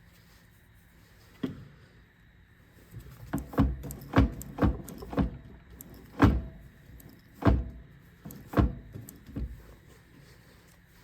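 Drill press running a cobalt stepped bit into titanium: a faint steady hum broken by about ten sharp, irregular knocks and clunks, bunched together in the middle and thinning out near the end.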